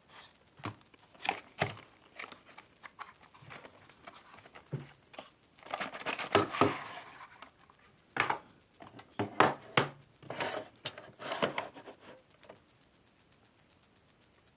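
Packaging being unwrapped and handled by hand: crinkling and tearing of wrapping with clicks and knocks, in irregular bursts that stop about twelve seconds in.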